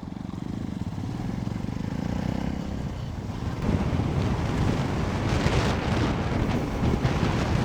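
Motorcycle engine running under the rider, steady at first, then louder with more wind and road rush from about three and a half seconds in as the bike gathers speed.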